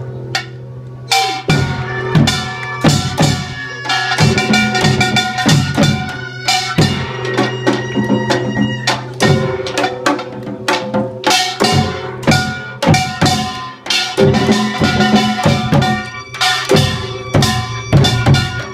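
Korean samulnori percussion ensemble playing: janggu and buk drums struck in a dense rhythm with the ringing clang of a kkwaenggwari small gong. The full ensemble comes in about a second in.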